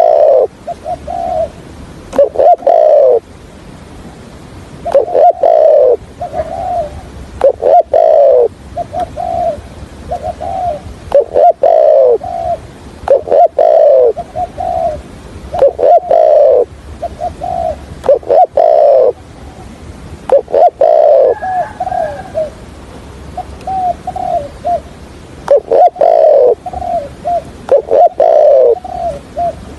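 Spotted dove cooing: phrases of low, falling coos repeated every couple of seconds.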